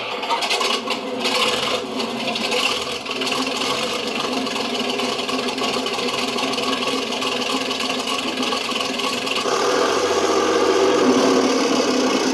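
Simulated King Tiger tank engine from an RC tank sound unit, starting up with a rattle, then running steadily. About nine and a half seconds in it gets louder, as if revved or pulling away.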